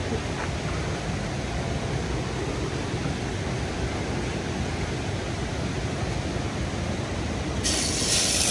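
Steady rushing noise of flowing river water. About three-quarters of the way through, a brighter, louder hiss comes in abruptly.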